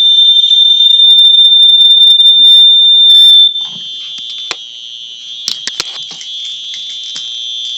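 Two fire-alarm sounders going off together, a loud, steady, piercing high tone over a second alarm. About three and a half seconds in the loud one cuts off abruptly, leaving the quieter high-pitched alarm sounding, with a few knocks of handling.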